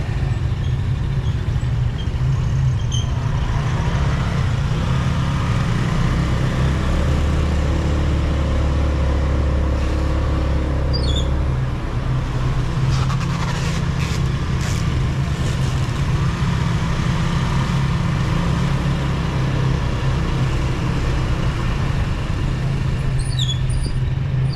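Motorcycle engine running steadily at low speed, heard from the bike itself, with a deeper hum joining for a few seconds in the middle.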